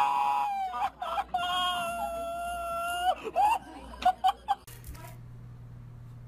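A person screaming in long held cries while fleeing a goose, followed by several short goose honks. Then the sound drops suddenly to a faint low steady hum.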